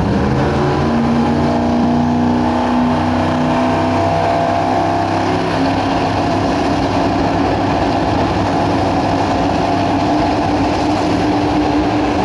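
Two drag-radial race cars' LS V8 engines running loudly at the starting line while staged before the launch. The engine notes shift pitch in steps over the first few seconds, then settle into a steadier note.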